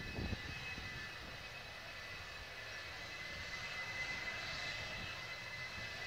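F-4EJ Kai Phantom II's twin J79 turbojets running at taxi power: a steady high-pitched jet whine in several tones that drift slightly in pitch, over a low rumble.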